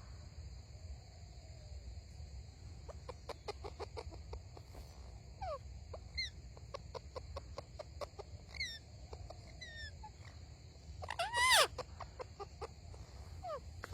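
Pet parrot making short chirping calls, with one louder squawk about eleven seconds in. A quick run of clicks comes around three to five seconds in.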